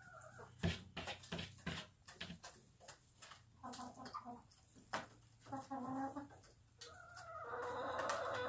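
Young hens clucking: short calls about three and a half and five and a half seconds in, then a longer drawn-out call near the end, over scattered sharp taps.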